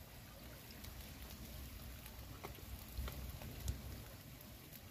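Faint crackling of a wood-ember fire with pomfret fish grilling on bamboo skewers over it, a few scattered small pops.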